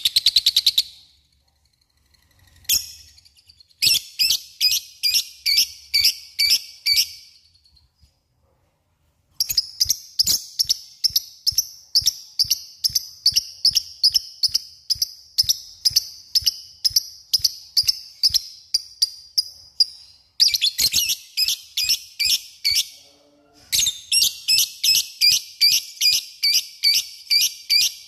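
Lovebird giving its long 'ngekek' chatter: runs of rapid, high-pitched chirps at about three pulses a second, the longest run about ten seconds, broken by a few short pauses.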